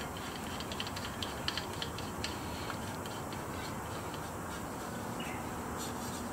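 Faint light metallic clicks and scrapes as the burner head of a Primus single-burner gas stove is turned by hand onto its threaded fitting, mostly in the first three seconds.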